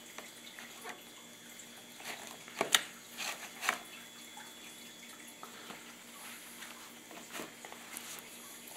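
Wet, soaked corrugated cardboard being handled and pressed down into a plastic tub: soft wet handling noises, with a few sharp slaps about three seconds in.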